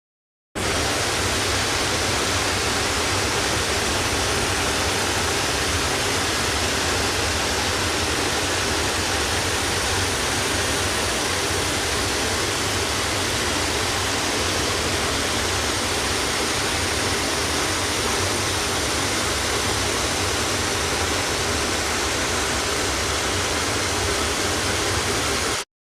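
Waterfall: a steady, unbroken rush of falling water that starts and cuts off abruptly.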